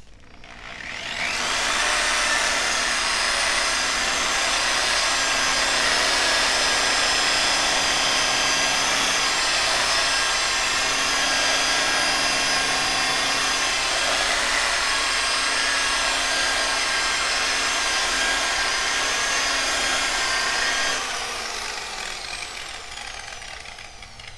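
Electric rotary polisher with a foam pad buffing compound into the clear coat of a painted car bonnet. The motor spins up over the first second or so, runs steadily under load, then winds down near the end.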